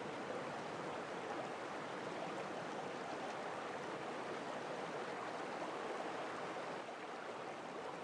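Water running steadily in a stone-lined qanat channel where it flows out of the underground tunnel: a continuous, even rushing with no breaks.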